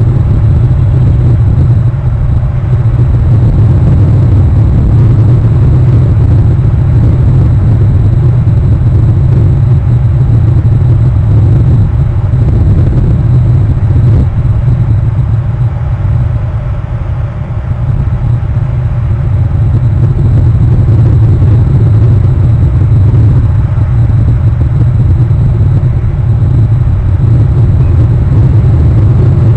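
A loud, steady low rumble with no distinct events, dipping slightly about two thirds of the way through.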